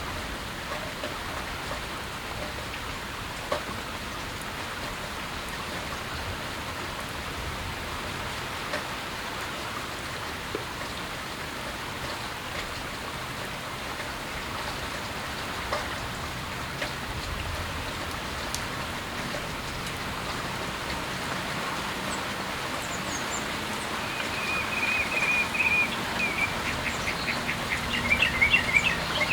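Steady rain falling, with a few single drips standing out. During the last few seconds a bird calls in a rapid series of repeated high notes that gets louder toward the end.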